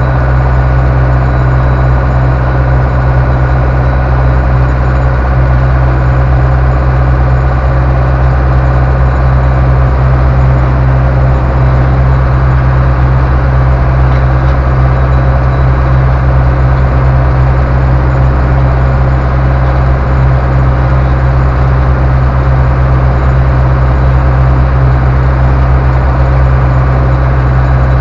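Ursus C-385 tractor's four-cylinder diesel engine running steadily as the tractor drives along, heard loud from inside the cab.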